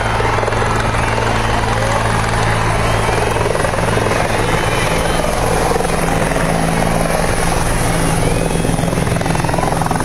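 Helicopter coming in to land, its rotors and engine running loud and steady with no let-up.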